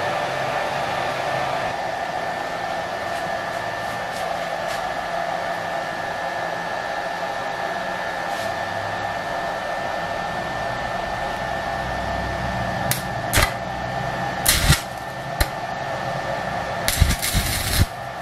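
Stick (arc) welder giving a steady hum with air noise, and, from about two-thirds of the way through, several short sharp crackles as the electrode is struck on the steel hammer head and the arc catches briefly.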